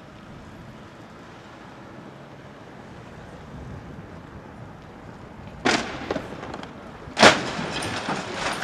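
A boat crash: after several seconds of steady low background noise, two loud crashing impacts about a second and a half apart, the second louder, each trailing off in clattering.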